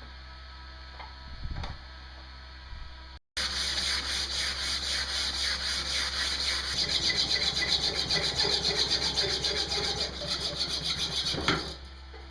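A steady electrical hum with a few faint clicks, then, after about three seconds, rapid rhythmic back-and-forth scraping strokes of a hand tool working metal. The strokes go on for about eight seconds and stop sharply near the end.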